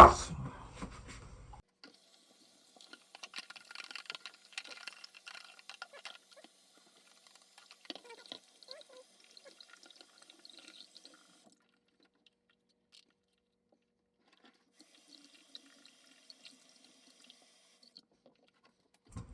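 A sharp knock right at the start, then faint, irregular water trickling and dripping while a washing machine's drain filter is cleaned. The second half is mostly quiet, with only a few faint ticks.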